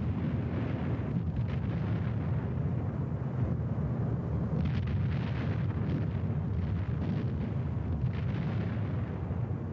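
Deep continuous rumble of aerial bombs exploding on a target, swelling into louder blasts about halfway through and again a few seconds later.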